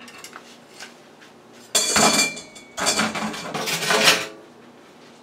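Metal air fryer mesh tray and spatula clattering and scraping, in two loud stretches: the first about two seconds in with a brief metallic ring, the second just after, lasting about a second and a half.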